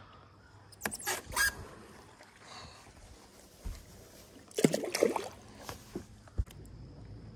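Scattered handling noises on a fishing boat: a few sharp clicks about a second in, a low knock, a louder cluster of short rattling knocks about five seconds in, and a single low thump a little later.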